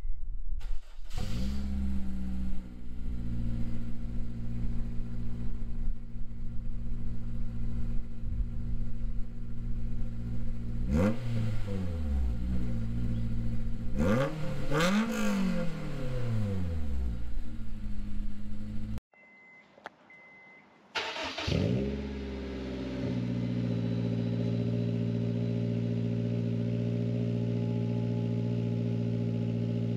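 Honda S2000's four-cylinder engine through a freshly installed Invidia N1 cat-back exhaust, started for the first time: it catches and flares at the start, settles to idle, and is revved twice near the middle, pitch rising and falling. After a short break it starts again, flares and settles into a steady idle.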